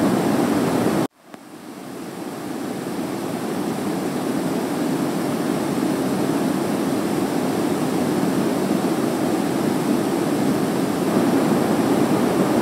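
Steady, even background hiss of room tone. It drops out about a second in, then fades back up over the next few seconds.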